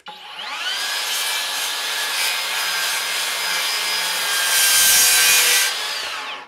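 Skilsaw 7-1/4 in. cordless worm-drive circular saw spinning up, cross-cutting an old 2x10 plank with a steady motor whine under the noise of the blade in the wood, loudest about five seconds in as it finishes the cut. The motor then winds down near the end.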